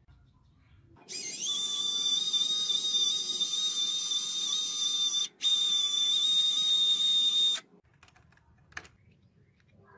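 Small electric motor whining as it spins up quickly, then running at a steady high pitch for about six seconds, with a brief break near the middle, before stopping suddenly.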